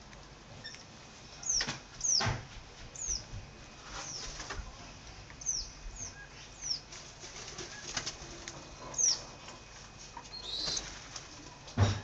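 Wild crimson rosellas flapping their wings as they land and take off around a feeding person, with about a dozen short, high, steeply falling whistled bird calls scattered through.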